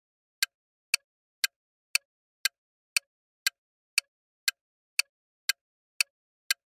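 Countdown timer sound effect: thirteen sharp clock-like ticks, evenly spaced at two a second.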